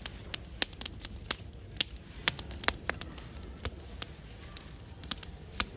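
Freshly lit campfire of paper and twigs burning well, crackling with irregular sharp pops about two a second over a low hiss.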